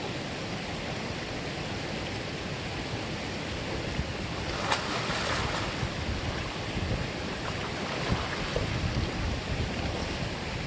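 Mountain valley stream rushing steadily over rocks, with low rumbling from wind on the microphone. About halfway through comes a brief louder surge of water, starting with a sharp click.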